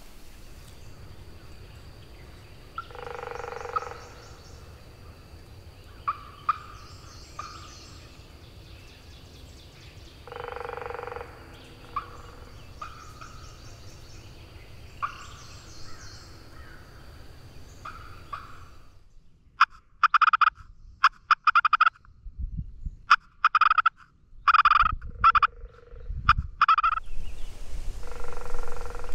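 Wild turkey gobbler gobbling twice in the first half, each gobble about a second long, with small bird chirps between. In the second half comes a much louder, close series of turkey yelps in quick runs of short notes, with a few low thumps, and one more gobble near the end.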